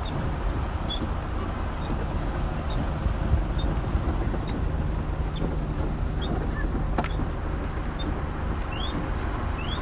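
Steady low rumble and hiss of outdoor ambience, with short high bird chirps repeating now and then.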